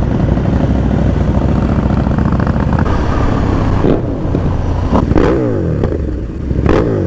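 Motorcycle engine running under way, with its pitch swooping up and down three times in the second half as the revs change.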